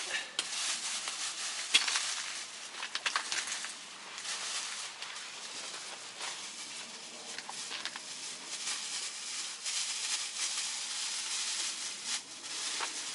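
Rustling with scattered light clicks and taps, the sharpest about two seconds in: hands handling things at close range.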